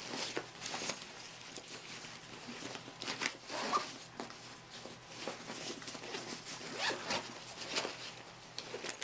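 A zipper being pulled in several short, scratchy strokes, the loudest a little past three seconds in and again about seven seconds in.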